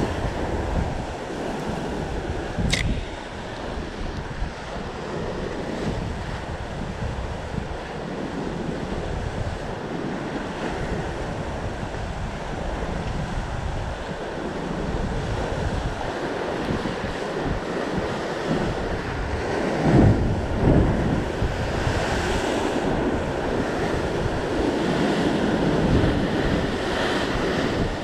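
Sea surf breaking against rocks, with gusty wind buffeting the microphone. A short sharp tick comes about three seconds in, and there is a louder surge of wind and water around twenty seconds in.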